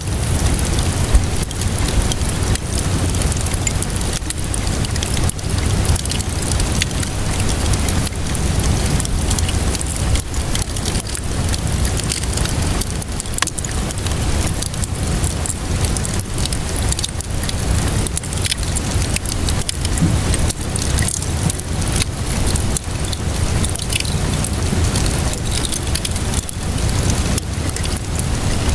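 Rain and a crackling fire: a steady patter of rain dotted with frequent small crackles and pops, over a low rumble.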